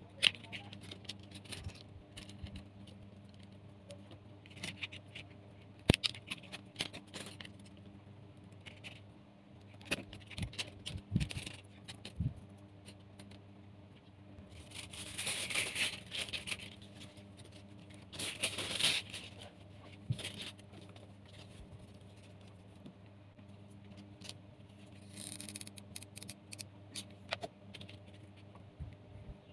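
Bamboo skewers being handled on a tabletop: scattered light clicks and clatter, with two longer scraping rustles about fifteen and nineteen seconds in. A sharp snip of spring-loaded shears near the start, over a faint steady low hum.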